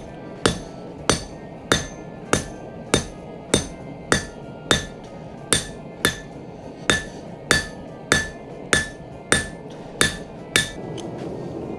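Hand hammer striking hot steel on an anvil: about seventeen evenly paced blows, a little under two a second, each with a short metallic ring, isolating material at the end of the bar. The blows stop shortly before the end, and a steady rushing noise carries on.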